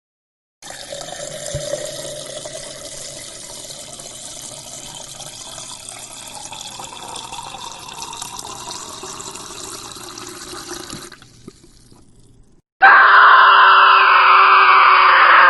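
Liquid poured into a glass: a steady splashing pour lasting about ten seconds, then tailing off. Near the end a much louder sound effect of a person screaming as if being tortured cuts in suddenly.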